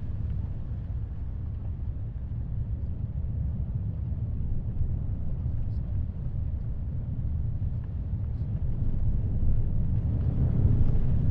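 Heavy ocean surf and wind: a deep, steady rumble of noise with no distinct waves or tones, swelling louder near the end.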